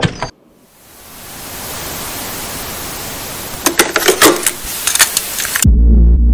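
A steady hiss that swells up over about a second, with a few sharp clicks near its end. It cuts off suddenly and loud, bass-heavy music starts.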